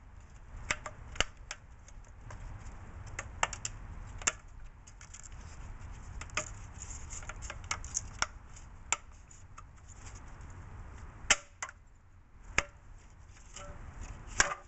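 Plastic lower mounting bracket being fitted into the holes of a new radiator: irregular sharp plastic clicks and knocks, with two louder knocks late on.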